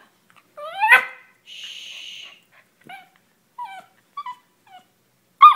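Poodle puppy whining and yipping while held in a sit, waiting for the tug toy: a rising yelp about a second in, a string of short falling whimpers, then a sharp yip near the end.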